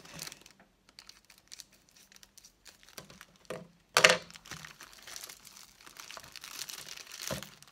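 Thin plastic packaging crinkling and rustling in the hands as a small packet from a diamond-painting kit is opened, with faint snips and ticks at first. About four seconds in, a single sharp clack, the loudest sound, as the scissors are put down on the table, followed by steady crinkling.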